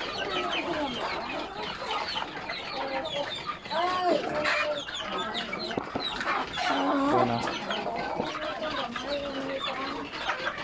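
Many caged chickens clucking and calling over one another, with a steady chorus of overlapping short calls as they are being fed.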